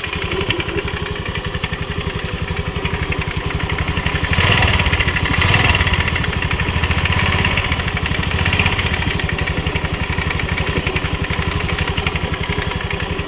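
Honda Grazia 125 scooter's single-cylinder engine running with an abnormal mechanical noise, which the mechanic traces to a scored clutch bell and a worn clutch pulley. The revs rise a little about four and a half seconds in and ease back after about nine seconds.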